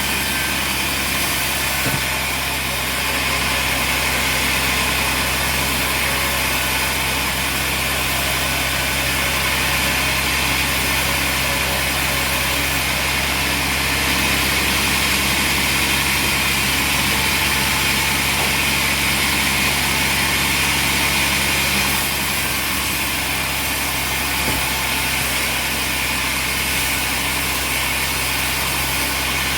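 An engine or motor running steadily at an even speed, with a constant low hum and a hiss higher up.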